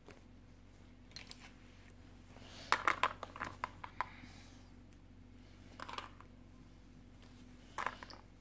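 Scattered light clicks and taps of small hard objects over a low steady hum: a few about a second in, a quick run of about ten about three seconds in, and short clusters about six seconds in and near the end.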